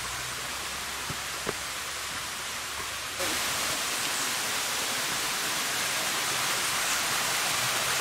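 Steady rushing of a rainforest creek and its small waterfall, louder from about three seconds in. Two light taps near the start.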